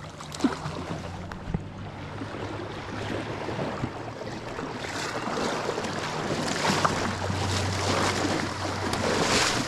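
A hooked sockeye salmon splashing and thrashing in shallow river water as it is dragged toward the bank. The splashing grows louder through the second half, over a steady low hum.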